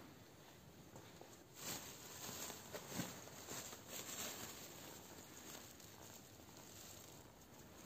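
Faint rustling and shuffling of plastic and woven sacks being handled and stepped among, with a short sharp knock about three seconds in.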